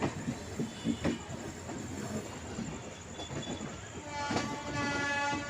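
Inside a moving passenger train, wheels knock over the rail joints amid steady running noise. About four seconds in, a train horn sounds, held for about a second.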